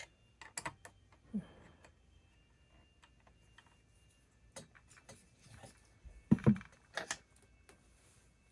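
Scattered small clicks and taps of hands handling a chainsaw's parts as the carburettor adjustment sleeve is backed out, with a couple of louder knocks about six and a half seconds in.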